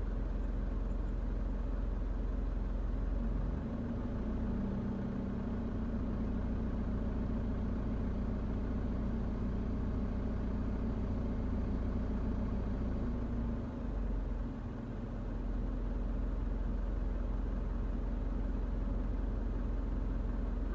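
Engine running steadily, a low rumble that dips briefly about two-thirds of the way through.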